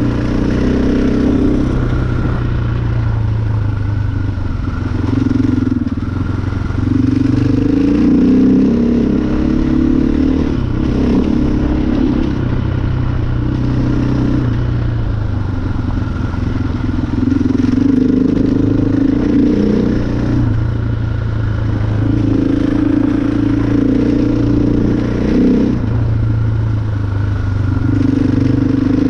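KTM 500 EXC single-cylinder four-stroke dirt bike engine under way, its revs rising and falling repeatedly with the throttle and gear changes.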